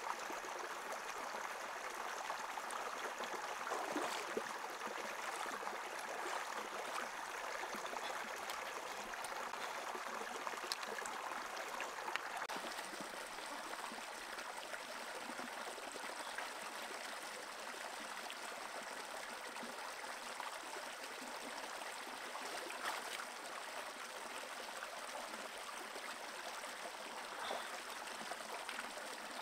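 Shallow stream running and trickling over rocks in a steady rush, with a few faint clicks scattered through it.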